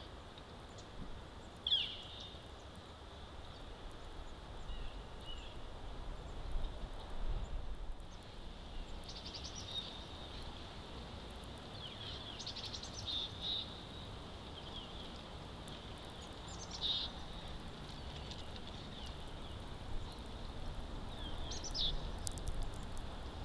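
Steady low background hiss between radio transmissions, with a handful of short, high chirps scattered through it.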